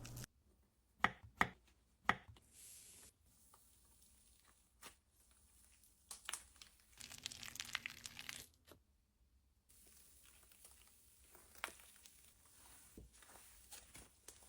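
Slime being handled: three sharp pops about a second to two seconds in, then stretches of soft crackling and crinkling.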